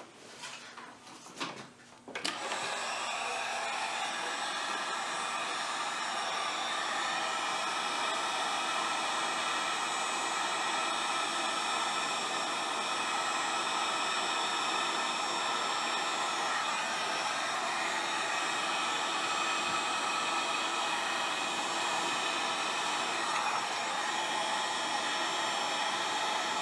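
A few light handling clicks, then a handheld Wagner heat gun switched on about two seconds in, blowing steadily with a whine of several steady tones over the air noise. It is shrinking heat-shrink tubing over a wire splice.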